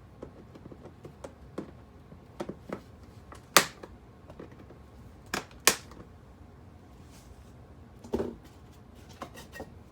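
Scattered sharp clicks and taps of hand tools and small model railroad track parts being handled as old track is pulled up. The loudest clicks come near the middle, and a duller knock follows about eight seconds in.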